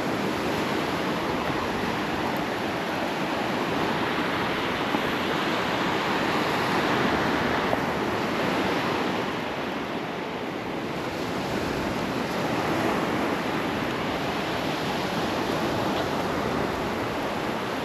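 Surf breaking and washing on a sandy beach, a steady rush of waves that swells a little louder partway through and eases off around the middle before building again.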